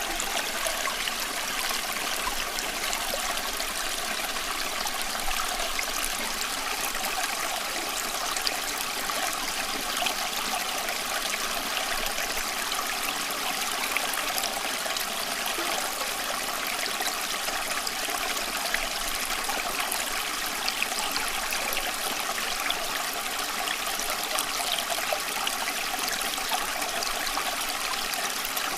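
Running water flowing steadily and unbroken, with small sharp splashes scattered through it.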